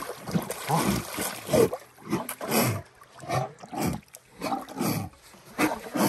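Indistinct voices of people talking in short, broken phrases.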